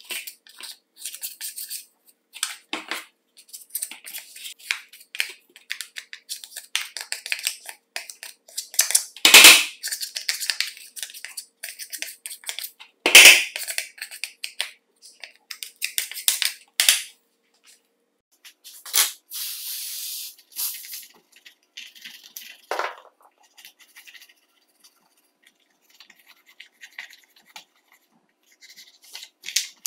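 Screwdriver scraping and prying caked dirt out of a chainsaw's recoil starter housing: irregular short scratches and scrapes, with two louder sharp knocks about nine and thirteen seconds in.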